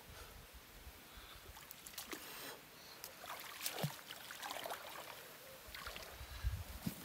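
Faint scattered knocks and water sounds from a small boat on the water.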